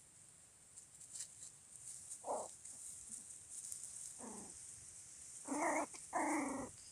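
Jack Russell puppies yipping as they wrestle in play: short calls that drop in pitch, two soft ones about two and four seconds in, then two louder ones near the end.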